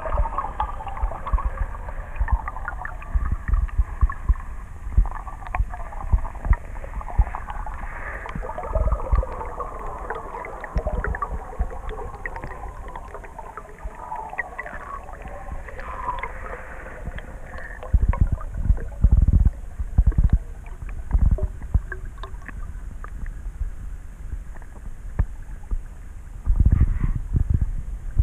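Muffled underwater sound from a camera held in a river: low rumbles and knocks of water moving against the housing, loudest in bursts about two-thirds of the way through and near the end. A fainter wavering higher sound runs through the first half.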